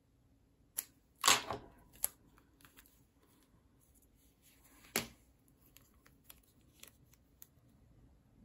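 Hands handling paper cards covered in washi tape on a tabletop: a short papery swish about a second in, a few light taps and clicks, a sharper tap about five seconds in, then faint scattered paper rustles.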